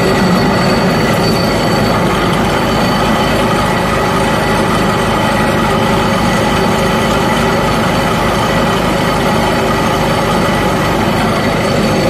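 Groundnut picking machine driven off a tractor's PTO shaft, running steadily: an even mechanical clatter with a constant high whine over the low engine sound.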